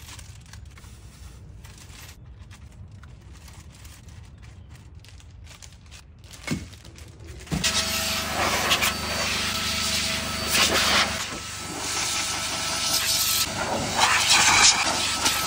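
A vacuum cleaner switches on about seven and a half seconds in and runs with a loud hiss of rushing air that swells and dips as the nozzle is worked over the car's seats. Before it starts there is only a low hum and a single knock.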